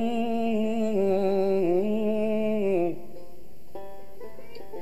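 Male voice singing a long, ornamented held note in Algerian chaabi style, breaking off about three seconds in. Plucked strings then carry the melody on at a lower level.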